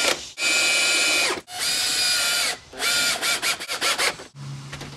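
Cordless drill driving screws into the aluminum hinge-side track of a storm door. The motor whines in runs of about a second each, then gives a quick string of short trigger bursts a little after the middle.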